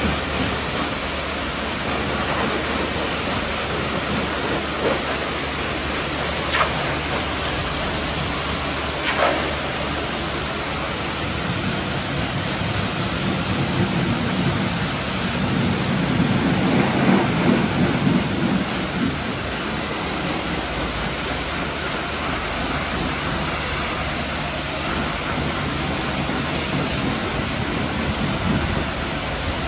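Water spraying steadily onto a car's bodywork in a hissing, rain-like rush, with a few faint knocks and a heavier, deeper patch of spray about halfway through.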